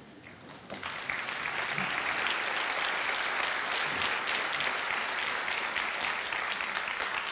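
Audience applauding, beginning about a second in and holding steady.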